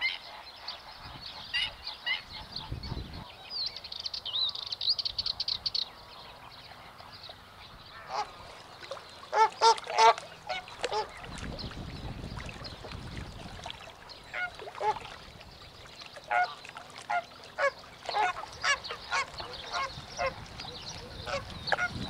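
Flock of greater flamingos calling: short repeated calls from many birds. The loudest cluster comes about nine to ten seconds in, and many short calls follow through the second half.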